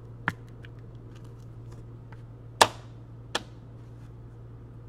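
A few sharp clicks and taps as cards and the metal Upper Deck Premier tin are handled: one just after the start, the loudest about two and a half seconds in with a brief ring, and another a moment later, over a steady low hum.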